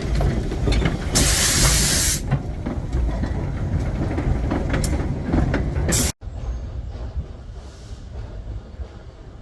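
Narrow-gauge train running with a low rumble, and a loud burst of hiss about a second in that lasts about a second. The sound cuts off abruptly near the end and resumes as a quieter rumble.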